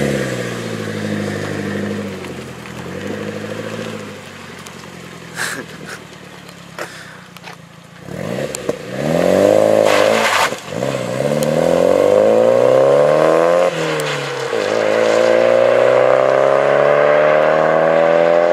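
Nissan 200SX S14a's turbocharged four-cylinder through a large-bore exhaust, blipped a few times at standstill, then accelerating hard away with the pitch climbing through the gears. There are gear changes about ten and fourteen seconds in.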